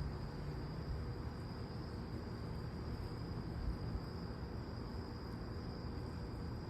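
Outdoor night ambience: a steady low rumble with a faint, continuous high-pitched insect chorus, typical of crickets or katydids. There is no thunder.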